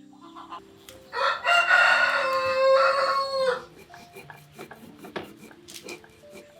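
A rooster crowing once, a long call of about two and a half seconds that drops in pitch at the end.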